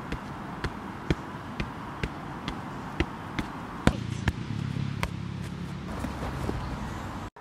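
A football being juggled on the feet, each touch of the ball on the shoe a sharp tap about twice a second. A few seconds in, the taps thin out and a low steady rumble comes in, with a few more touches and a kick before the sound cuts off suddenly near the end.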